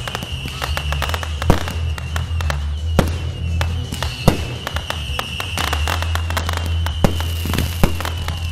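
Fireworks going off in a string of sharp bangs and crackles, the loudest reports coming every second or so, with music playing underneath.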